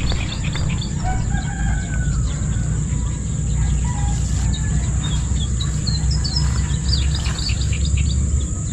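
A rooster crowing, with small birds chirping, over a steady low rumble and a thin, steady high-pitched whine.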